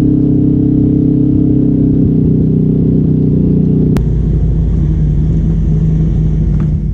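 Polaris RZR side-by-side's engine running steadily at trail speed, heard from the cab. About four seconds in the sound switches with a click to a second RZR's engine, with more low rumble, running at about 3,000 to 3,500 rpm.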